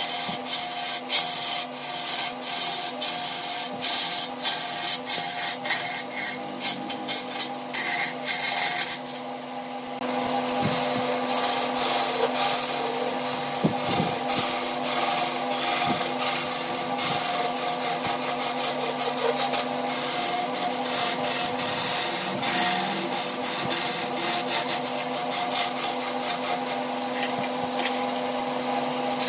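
Wood lathe spinning a log blank while a hand-held turning tool cuts into it, with the lathe motor's steady hum underneath. For the first several seconds the tool scrapes and ticks unevenly against the wood. There is a brief lull about nine seconds in, then a steadier, continuous cut.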